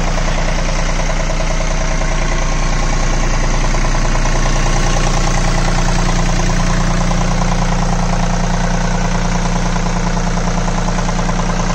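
John Deere 3028 EN's Yanmar three-cylinder 1.3-litre water-cooled diesel engine idling steadily, heard close up at the open engine bay. It sounds somewhat noisy because the engine has run only about 5 hours and is not yet run in.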